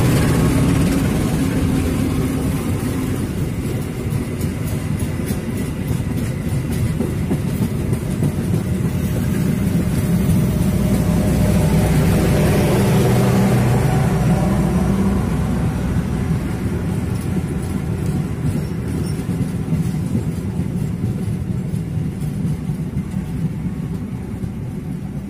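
A long-hood diesel locomotive's engine running as it passes, followed by its train of passenger coaches rolling by on the rails. The rumble swells to its loudest about halfway through, then fades as the train moves away.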